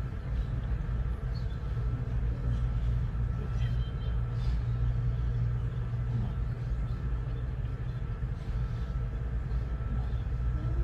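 Steady low rumble with a faint high hum above it, unbroken and without clear events.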